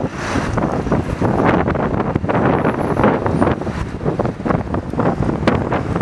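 Strong gusting wind buffeting the microphone: a loud, uneven rumble that surges again and again.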